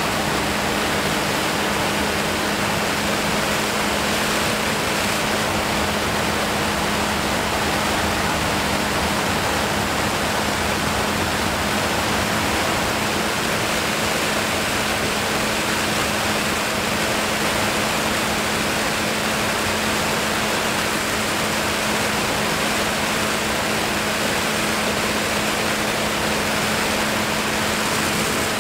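Steady rush of airflow over the microphone of a camera on an aircraft in flight, with a constant low hum underneath.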